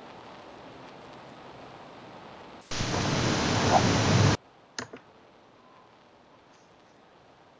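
Steady hiss, broken by a much louder burst of static-like noise lasting about a second and a half, then two quick sharp clicks.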